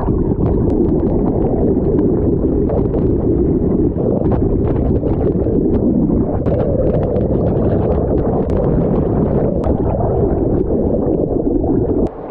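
Water rushing past a camera held underwater behind a moving sailboat: a loud, muffled, steady rumble with many small crackling bubble clicks. It drops off sharply about twelve seconds in as the camera comes out of the water.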